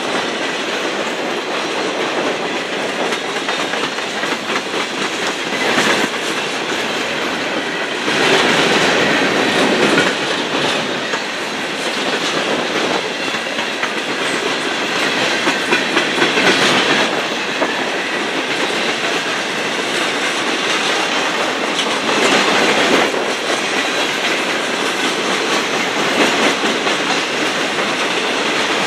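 Freight cars rolling past close by, their steel wheels clacking over rail joints in a steady rumble that swells louder every several seconds.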